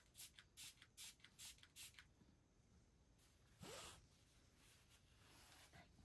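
Faint, quick scratchy rustling strokes, about four or five a second, for the first two seconds, then near silence broken by one brief rustle a little past halfway.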